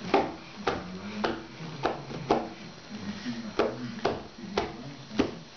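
A baby slapping a cardboard box with an open hand, drumming on it. It gives about eight sharp slaps at an uneven pace, with a longer pause in the middle.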